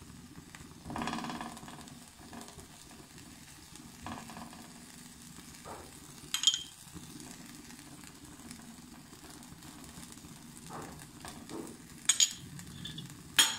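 Moong dal paratha sizzling quietly in a nonstick frying pan while a steel spoon scrapes over it, spreading ketchup; sharp clinks of the spoon against the pan come about six seconds in and twice near the end.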